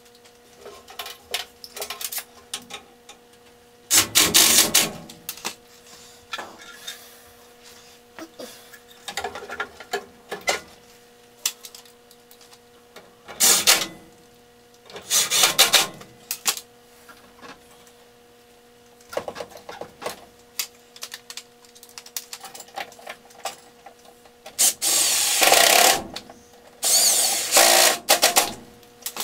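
Cordless drill-driver run in about six short bursts on screws in a furnace cabinet, with small clicks and metal clinks between them. A faint steady hum sits underneath.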